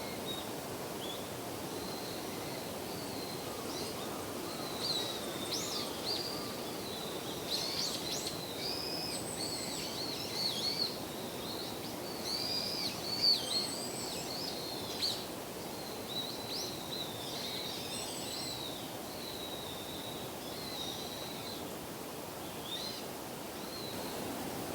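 Small songbirds calling: a scatter of short, high chirps and twitters, busiest in the middle, with a few very thin, higher trills now and then, over a steady low background of distant noise.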